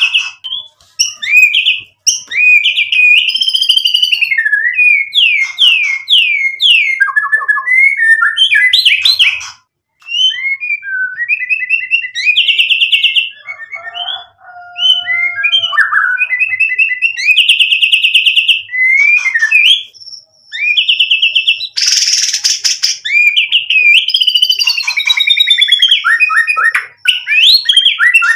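A white-rumped shama sings a long, rapid, varied song: whistled glides, fast repeated notes and trills strung together, with mimicked phrases from its learned repertoire. A brief break comes about a third of the way in, and a short harsh rasping burst about three-quarters of the way through.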